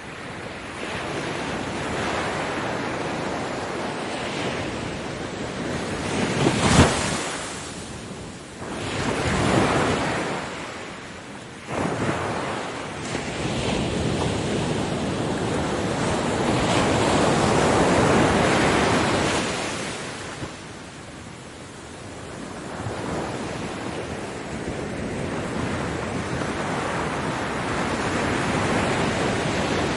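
Ocean waves breaking on a beach: surf that swells and draws back every few seconds, with one sharp crash about seven seconds in and a long, loud surge of surf around the middle.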